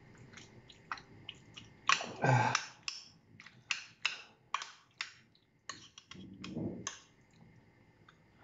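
Spoon clicking and scraping against a small baking tray while stirring a thick, creamy vegetable-and-cheese sauce: a run of short, irregular clicks.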